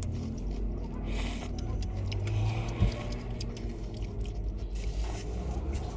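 Steady low rumble of a car, heard from inside the cabin, with a single sharp click a little before halfway through.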